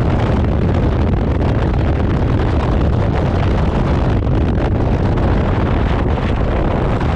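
Wind buffeting the microphone: a loud, steady, rumbling rush with no break.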